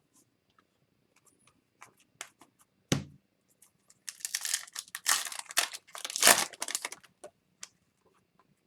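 Foil wrapper of a hockey card pack being torn open and crinkled, a dense crackling for about three seconds. Before it come light clicks of cards being handled and a single thump about three seconds in.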